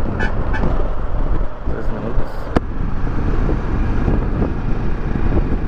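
Kawasaki Versys 650 parallel-twin motorcycle under way on the road, its engine and riding noise mixed with wind rumble on the microphone. A sharp click about two and a half seconds in.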